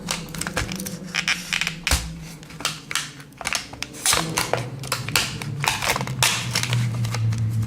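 Small blade of a Victorinox Tinker Swiss Army knife cutting through packaging: a run of short scraping cuts and crackles. A low steady hum joins about four seconds in.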